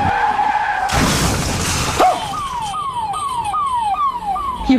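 Edited-in comedy sound effects: a steady high squeal for about a second, then a loud rushing noise burst, then a siren-like tone that falls in pitch again and again, about three times a second.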